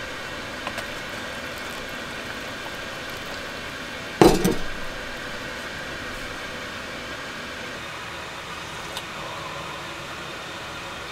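One sharp clink of tableware knocked down on the table about four seconds in, ringing briefly, with a couple of light taps around it over a steady background hum.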